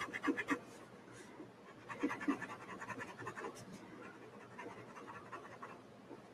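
Pencil scratching on paper in quick back-and-forth shading strokes, about ten a second, in three spells: at the start, from about two seconds in, and again near five seconds.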